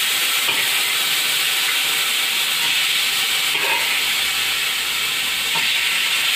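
Chicken masala sizzling steadily in hot ghee in a large aluminium pot as it is spooned in: a loud, even hiss.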